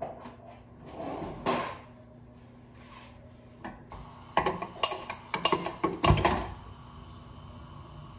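Gas stove burner being lit with a handheld lighter: a quick run of about ten sharp clicks over two seconds ends as the gas catches with a low thud. The flame then burns with a steady low hum. A soft scrape is heard about a second and a half in.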